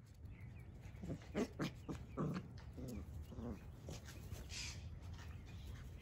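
Five-week-old Australian Shepherd puppies play-fighting, one giving a quick run of short growls and yips between about one and three and a half seconds in.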